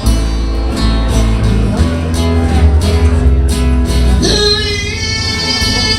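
Live acoustic music: an acoustic guitar strummed in a steady rhythm, with a held sung line coming in about four seconds in.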